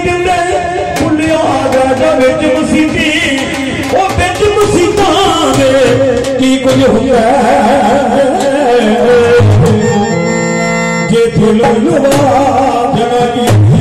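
Live devotional Punjabi music between sung lines: an electronic keyboard plays the melody over a steady drum beat. About ten seconds in, the beat drops back briefly under a held keyboard chord.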